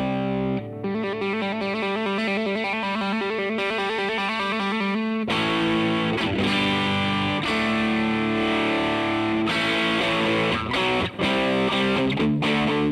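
Siam Custom electric guitar played through a DemonFX YJM308 overdrive pedal and a NUX Amp Academy preamp, with a distorted, overdriven tone. A fast run of rapid picked notes lasts for about the first five seconds, then gives way to slower, longer held notes that ring out.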